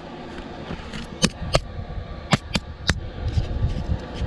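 Handheld camera being fumbled with: five sharp clicks in under two seconds, then soft knocks of handling, over the steady blowing of a fan heater.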